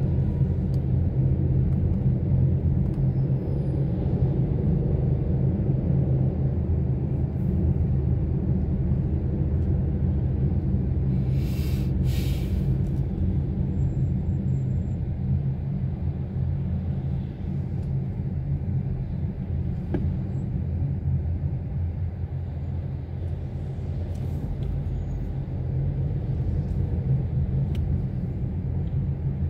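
Steady low rumble of a car driving in city traffic, engine and tyre noise, with a brief hiss about twelve seconds in.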